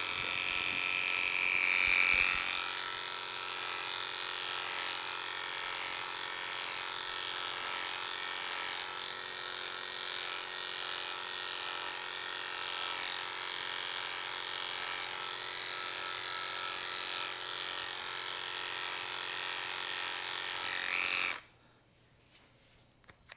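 Electric dog-grooming clippers fitted with a 7F blade, running steadily as they trim the outside of a dog's ear. The motor hum cuts off suddenly near the end.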